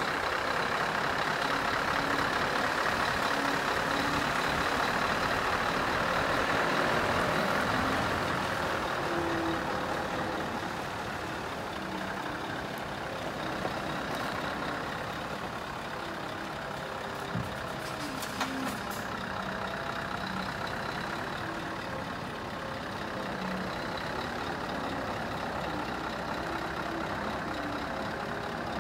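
Scania R500 tractor unit's V8 diesel engine running as the truck manoeuvres slowly with a trailer coupled. It is louder for the first several seconds, then settles. A few short sharp clicks come about 18 seconds in.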